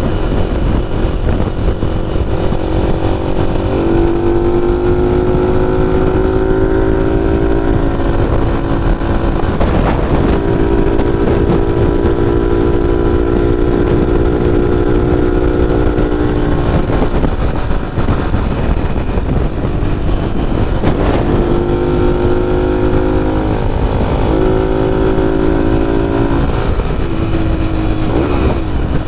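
Small motorcycle engine running under way on a Honda C90-based bike, its note stepping up and down several times as the rider changes speed, with heavy wind rumble on the microphone.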